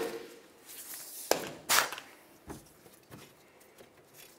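Sharp metallic clicks and knocks from the caliper bracket bolts and the ratchet as the bolts come out. The loudest pair falls about a second and a half in, and fainter knocks follow. The whir of a cordless ratchet trails off at the start.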